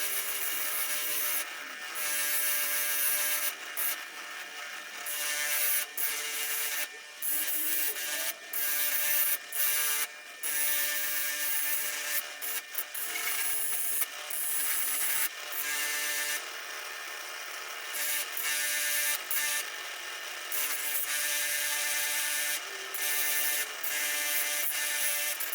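Small power tool spinning an abrasive fiber wheel against steel pliers: a steady motor whine that dips and breaks off briefly many times as the work is pressed on and lifted.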